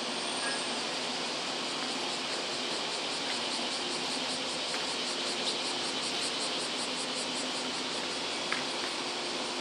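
Steady hiss and hum of a stationary 117-series electric train idling at the platform, its auxiliary equipment running. Insects chirp in rapid even pulses, about four a second, through the middle, with a light click near the end.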